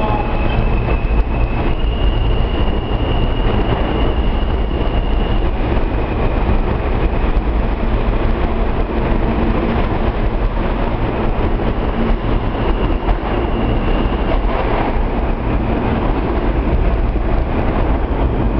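An R160 subway train leaves an underground station: a steady, loud rumble of wheels on rail, with a thin high whine that comes and goes twice.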